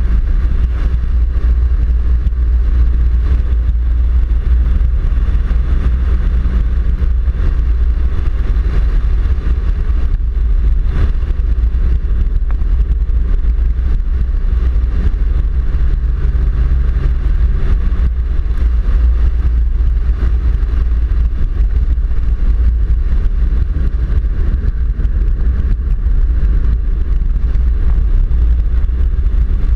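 Four-wheel-drive vehicle driving along an unsealed gravel road: a loud, steady low rumble of tyres on gravel, with the engine's hum holding an even pitch underneath.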